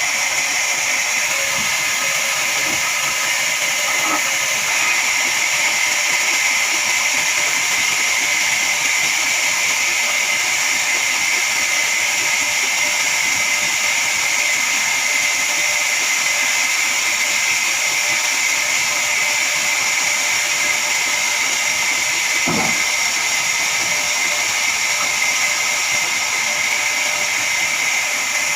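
Horizontal band sawmill running through a log: a steady, high hissing whine from the blade. A brief pitched sound comes about three-quarters of the way through.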